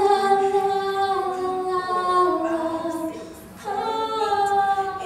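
A woman singing a cappella: two long, held notes that sag slightly in pitch, with a short break about three and a half seconds in before the second.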